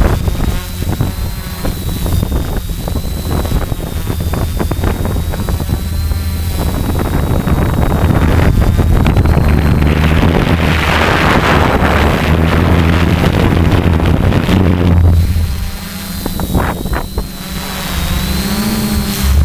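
DJI 450-clone quadcopter's motors and propellers whirring, heard from the camera mounted on the craft: a steady high whine that wavers slightly in pitch over a low rumble, dipping briefly in loudness near the end.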